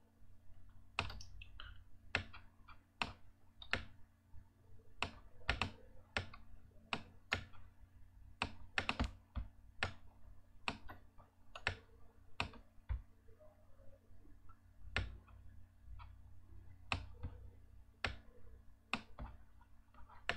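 Computer mouse clicking irregularly, about one or two clicks a second with some in quick pairs, over a faint steady hum.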